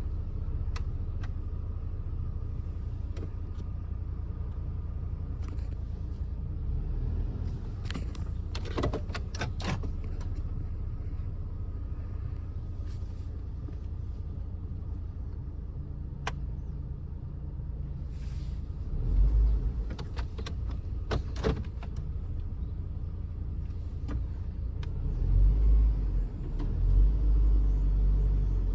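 2008 Hummer H3 drivetrain and engine running steadily, with scattered sharp clicks and two louder low surges as the throttle is pressed, one about two-thirds of the way through and a longer one near the end. The vehicle feels locked up under throttle, which the mechanic puts down to four-wheel drive stuck engaged.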